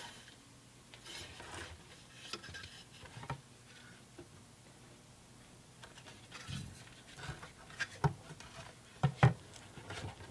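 Subwoofer driver being handled, turned over and set back into its wooden, carpeted enclosure: faint rubbing with light knocks, more frequent in the second half.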